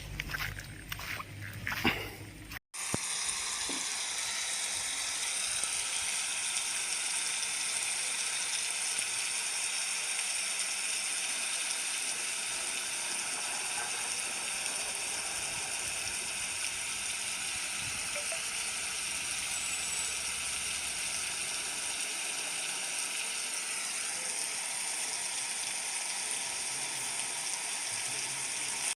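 Steady, even hiss of a mountain stream, with faint held high tones over it. It starts after a sudden cut about three seconds in. Before the cut there are scattered clicks and knocks.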